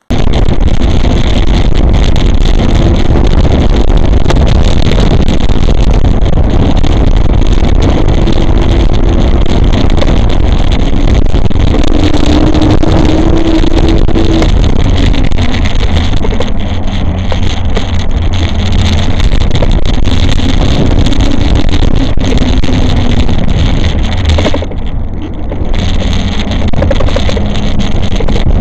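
Loud, steady wind rushing over the microphone of a camera mounted on a moving e-bike, with a faint hum underneath that drifts up and down in pitch. The noise drops briefly about 25 seconds in.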